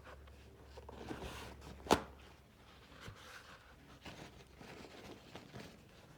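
Faint rustling and handling noises, with one sharp click about two seconds in.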